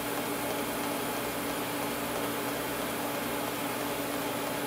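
Pulsed TIG welding arc fusing thin-wall stainless steel tube without filler, run at full pedal: a steady hissing buzz over a low hum.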